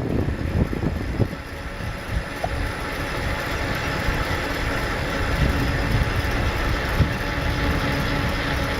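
Steady rumble of a bicycle ride: tyres rolling on the road and the bike rattling, with a couple of sharp knocks.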